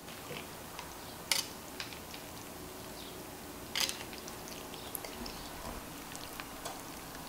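Wooden chopsticks stirring noodles in a bowl of cold soy-milk broth with ice cubes, making soft wet sounds and a few short clicks, two of them louder, about a second in and near the middle.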